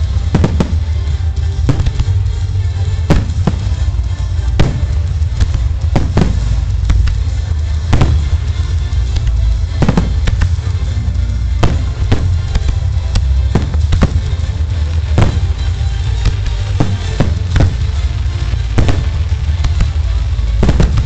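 Aerial fireworks shells bursting in quick succession, sharp booming reports close to two a second at irregular spacing, over a continuous low rumble.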